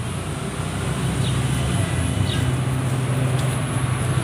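Steady low background rumble, traffic-like, with faint scratches of a pen writing on paper.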